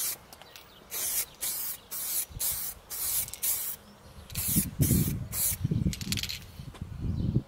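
Aerosol spray paint can hissing in short bursts, about two a second, as paint is sprayed onto a part. A low rumbling noise comes in about halfway through and becomes the loudest sound.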